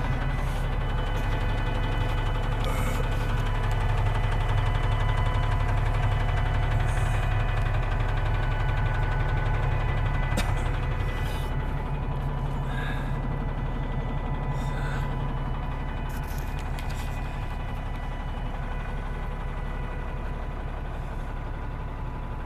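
Werklust WG 45 B wheel loader's six-cylinder DAF diesel engine idling steadily.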